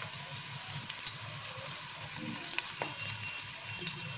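Sliced onions frying in hot oil in a metal pot, a steady sizzle with many small crackling pops. The onions are at an early stage, still pale.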